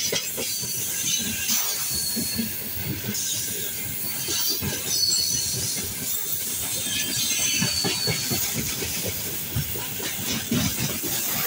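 Freight train of open gondola wagons rolling past close by: a steady clatter and rumble of steel wheels over the rail joints, with a few brief high-pitched wheel squeals.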